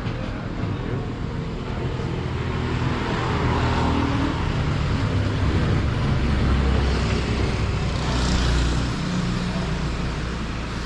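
A motor vehicle's engine running steadily, its pitch shifting up and down, with road noise.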